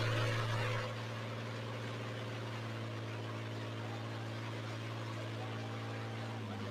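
World War II tank V12 engine in a Model A Ford coupe hot rod running at a steady speed, an even deep drone. A louder rush of noise on top of it drops away about a second in, leaving the engine note alone.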